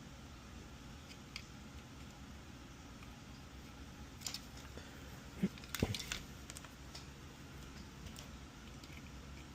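Small clicks and taps from a circuit board and multimeter probes being handled while diodes are tested, over a steady low hum. A short cluster of louder taps comes about four to six seconds in.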